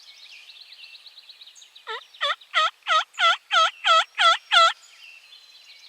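A loud series of about nine turkey yelps, roughly three a second, starting about two seconds in and stopping near the end. Behind them a faint, fast, high trill of a small songbird runs on.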